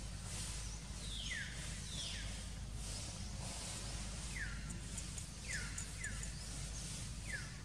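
Baby macaque crying: about six short, high-pitched cries, each sliding down in pitch, at irregular intervals, the cries of a hungry infant begging for food.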